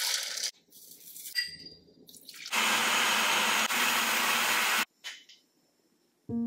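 Pine nuts pouring into a plastic food processor bowl, then the food processor's motor running for about two seconds as it blends pesto, a steady whirring with a low hum that cuts off suddenly.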